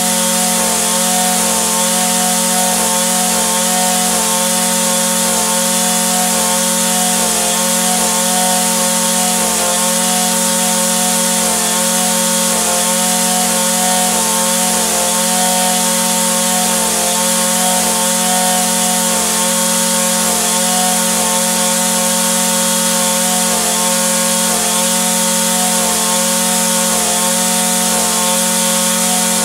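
Echo SRM-2620 string trimmer's two-stroke engine running steadily at a constant speed, with no revving.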